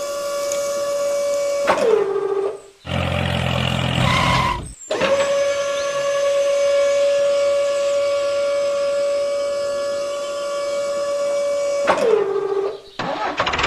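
A long, steady siren-like tone with strong overtones that slides down in pitch and cuts off about two seconds in. A short low engine-like rumble follows, then the tone returns and slides down and stops again near the end.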